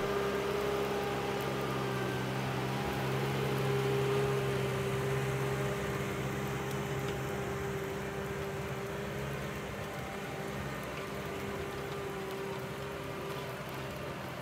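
Tractor engine running at a steady speed, a constant drone whose deepest note fades about six seconds in.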